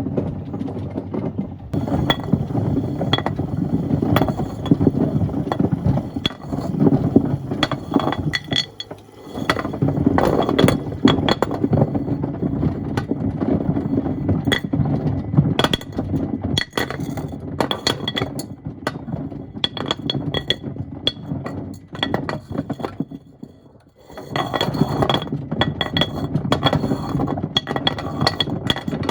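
Stones and wood tumbling in a Miele washing machine drum, clinking and knocking irregularly against the drum over a steady low rumble. The tumbling lulls briefly twice as the drum pauses.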